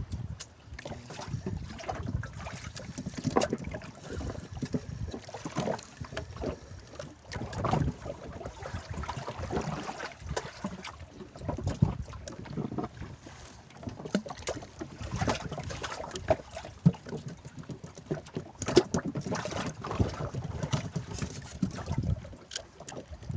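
Small waves slapping and sloshing against the hull of a small open boat at sea, with wind on the microphone and frequent short knocks against the boat.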